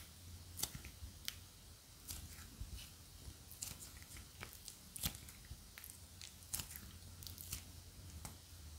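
Pink plasticine being kneaded and squeezed by hand with lotion worked into it: faint sticky squishing with many scattered soft crackles and clicks.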